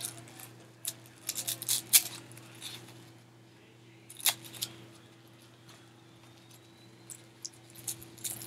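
Small plastic blind-bag packet handled and opened by hand: scattered crinkles and clicks, busiest in the first two seconds and again near the end, over a faint steady hum.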